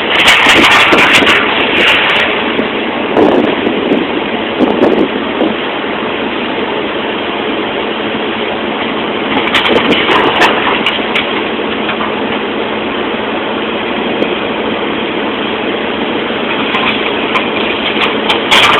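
A heavy engine running steadily, with a few louder surges and some clatter: near the start, around three to five seconds in, and around ten seconds in.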